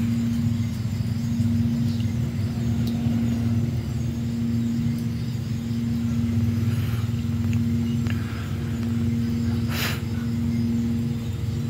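Steady low machine hum, a small motor running continuously with one held tone, and a short sharp noise about ten seconds in.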